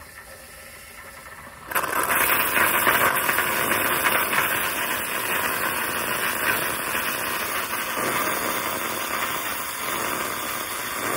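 Cecotec espresso machine's milk frother steaming and frothing milk: a loud, steady hiss that starts suddenly about two seconds in.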